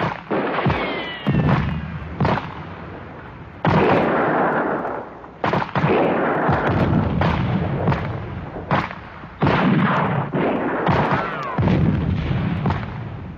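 Battle sound effects: a rapid string of explosions and gunfire, a dozen or more sudden blasts that each die away over about a second, with a few whistling tones that glide down in pitch near the start and again near the end.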